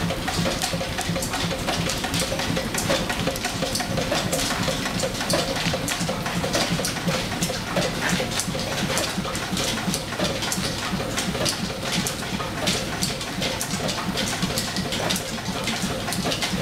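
Small stationary steam engine driving an overhead line shaft through flat leather belts, the shafting and pulleys running steadily. The sound is a constant mechanical hum with many quick, irregular clicks and ticks from the belts and running gear.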